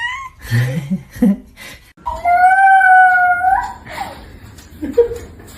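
A pet's drawn-out, howl-like call in answer to a prompt: a short wavering call at the start, then one long steady call about two seconds in that rises in pitch at its end.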